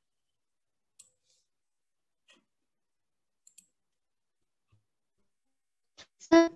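A few faint, widely spaced computer clicks from a mouse or keyboard. Near the end, a short, much louder burst of a person's voice.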